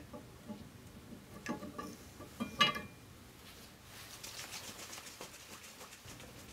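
Glass viscometer tubes and rubber stoppers being handled, with light clicks and one sharp glass clink about two and a half seconds in. Then, from about four seconds, a rapid rhythmic rattling as a stoppered glass tube of flour and water is shaken hard by hand to mix the sample into a suspension for a Falling Number test.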